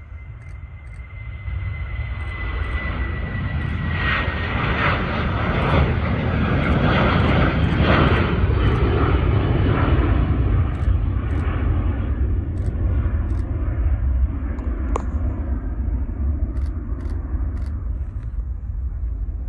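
Ryanair Boeing 737 jet engines at takeoff thrust as the airliner rolls and climbs away. A thin high whine slides a little lower over the first few seconds while a deep rumbling jet noise builds to its loudest around the middle, then slowly fades as the aircraft departs.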